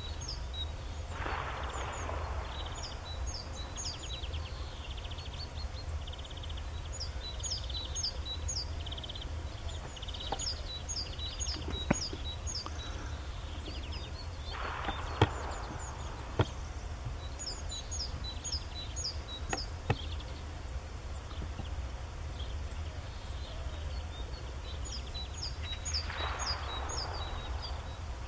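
Outdoor ambience of small birds chirping in quick repeated phrases, over a steady low rumble. A few sharp clicks stand out as the loudest moments, about halfway through.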